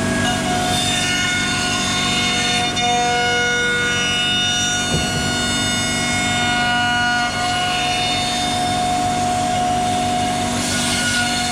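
CNC router cutting wood, its spindle giving a steady, high whine made of several held tones whose pitches shift now and then as the cut goes on, with a single knock about five seconds in.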